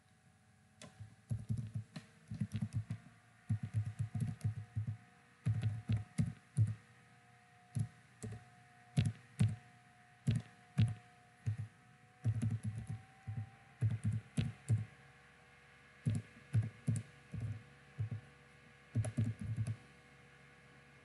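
Typing on a computer keyboard: irregular bursts of keystrokes with short pauses between them, stopping shortly before the end.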